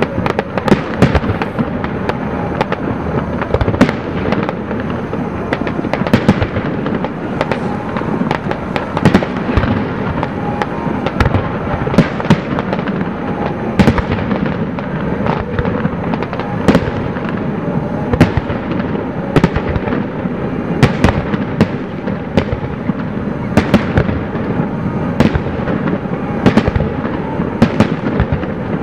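Aerial fireworks shells bursting: dozens of sharp bangs at irregular intervals over a steady wash of noise.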